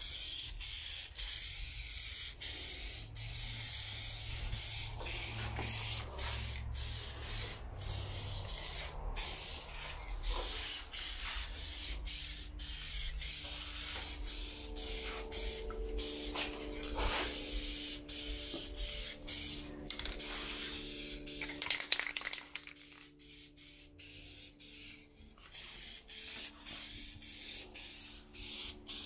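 Aerosol can of trim paint spraying in repeated bursts, a hiss broken by many short pauses, with a quieter stretch a little past the middle.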